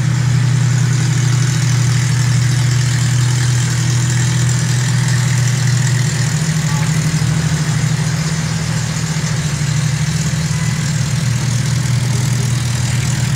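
Homemade trike's engine idling steadily.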